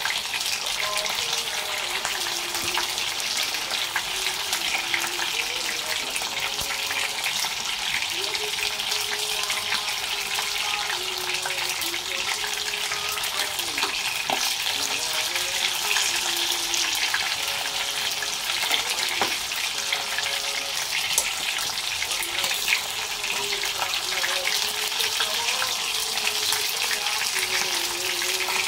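Rice cooking in tomato broth in an open pot, bubbling at a boil with a steady crackling hiss. A fork stirs through it, with a few small clinks.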